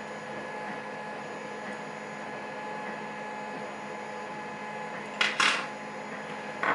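Steady background hum, with two short scraping clicks about five seconds in and another near the end, from small parts of a gutted pin-tumbler lock being handled.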